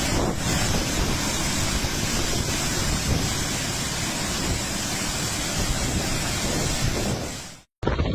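Strong storm wind blowing hard and buffeting the microphone, a steady loud rush with a low rumble. It cuts off abruptly about seven and a half seconds in.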